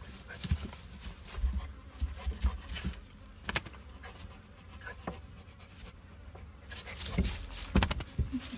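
Young dog close to the microphone, panting and shifting about on straw, with scattered rustles and knocks.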